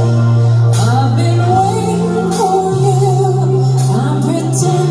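Live rock band playing a ballad with a woman singing lead into a microphone, over sustained bass notes that change every couple of seconds. Three cymbal crashes land about a second and a half apart.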